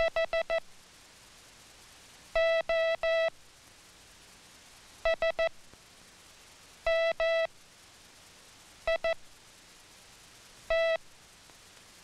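Morse code sent by hand key as a steady, buzzy single-pitch tone, one letter at a time with about a second and a half between letters. The letters are H (four quick dits), O (three long dahs), S (three dits), M (two dahs), I (two dits) and T (one dah).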